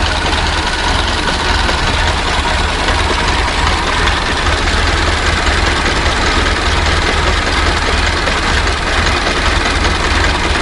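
Old car's engine idling steadily with a deep, even rumble.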